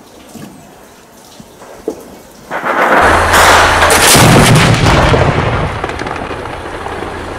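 Truck-mounted anti-aircraft cannon firing: a sudden heavy boom about two and a half seconds in that rolls on and slowly fades over several seconds, over a steady low hum. Before it, a couple of faint sharp cracks.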